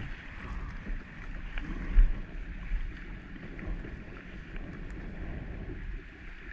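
Wind buffeting the microphone over choppy water slapping against a kayak's hull, with one loud low thump about two seconds in.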